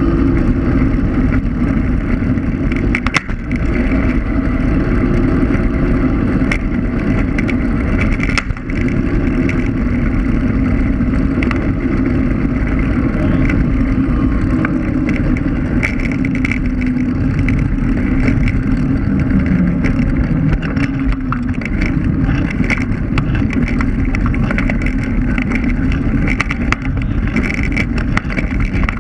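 Electric scooter riding along the road: a steady motor and drive hum with tyre rumble and wind on the camera's microphone, plus a couple of sharp knocks from bumps in the pavement.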